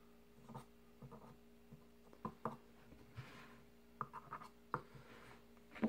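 Scattered light clicks and taps of small hand tools on a vape coil build, with a short scratchy rustle about three seconds in.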